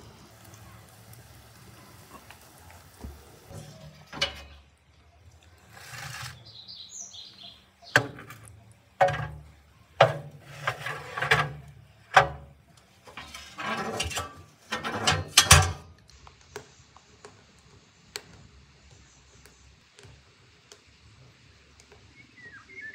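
Metal baking tray clattering and scraping as it is pushed into the oven of a wood-burning stove: a run of sharp metallic clanks and knocks over several seconds in the middle. A bird chirps briefly before.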